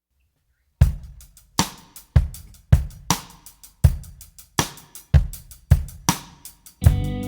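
Background music: after a short silence, a drum-kit beat starts about a second in, with kick, snare and cymbal hits. Near the end, sustained pitched instruments come in under the drums.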